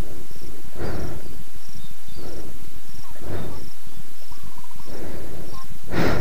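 An insect chirping: short high chirps repeating evenly, a little under two a second, over a low rumbling noise that surges now and then.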